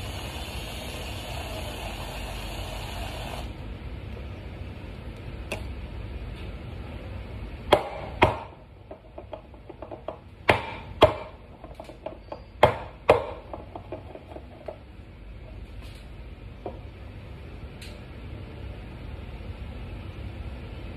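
Handheld milk frother whirring in a metal milk pitcher, cutting off abruptly about three seconds in. Then the pitcher is knocked down on the counter in three pairs of sharp knocks.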